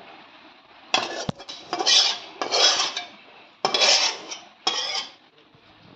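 Metal spatula scraping and clanking against a steel bowl and wok as fish curry is dished out. It starts with a sharp clank about a second in, followed by about five short scrapes.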